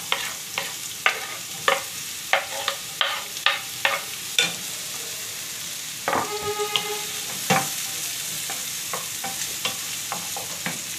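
Sliced red onion sizzling in hot oil in a frying pan, stirred with a wooden spatula that clacks against the pan about twice a second for the first few seconds and more lightly afterwards. A short squeak comes about six seconds in.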